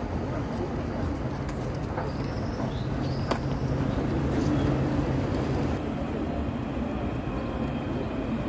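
City street traffic, a steady hum of vehicles, with a vehicle passing and growing louder through the middle before easing off. A single sharp click sounds a little after three seconds in.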